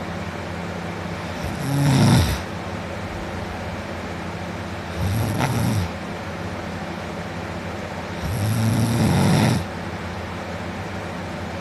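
A man asleep on his back snoring loudly: three long snores about three and a half seconds apart, the last the longest, over a steady background hum.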